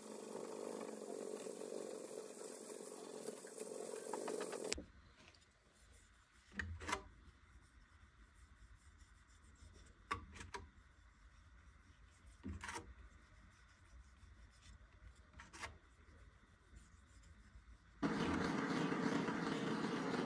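Hand sanding of a wooden hammer handle with sandpaper: a steady rasping hiss that stops about five seconds in. A quiet stretch follows with a few soft knocks and clicks as the handle is handled. Near the end a gas blowtorch lights and burns with a steady, loud rushing hiss.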